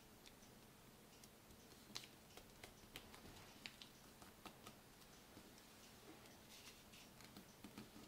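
Faint, irregular crinkles and light taps of a sheet of origami paper being folded and creased by hand, over near silence.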